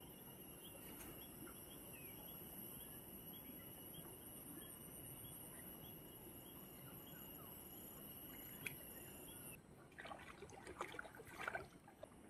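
Faint riverside background with a steady high-pitched whine, then after about ten seconds a short run of irregular splashes and knocks as a hooked fish thrashes at the surface and is pulled in on a rod.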